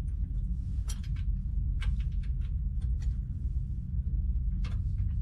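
Brass cover on a boat engine's raw-water fitting being screwed down by hand: a few light metallic clicks and scrapes, spread over several seconds, over a steady low hum.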